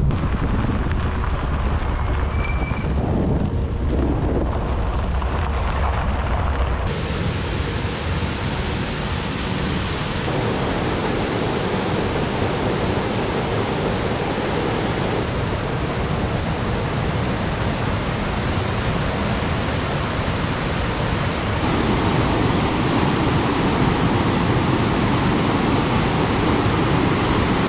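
Steady rush of water from a rocky mountain stream, its level and character changing abruptly a few times. For the first several seconds, a low rumble with wind on the microphone from riding in an open vehicle.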